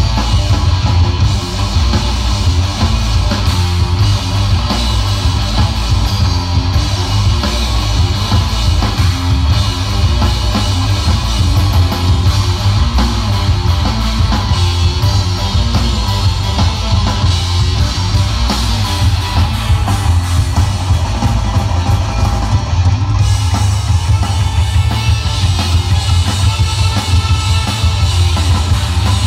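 Live rock band playing loud: two electric guitars, electric bass and drum kit, amplified through the venue's PA, with a heavy low end.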